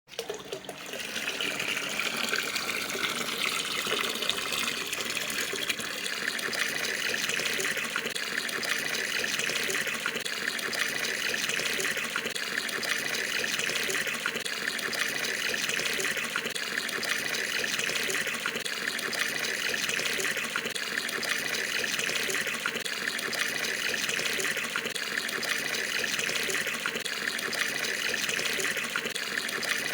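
Tap water pouring steadily into an Indonesian bathroom water tub, with a splashing fill that starts within the first second and then holds even. A faint pulse repeats about every second and a half.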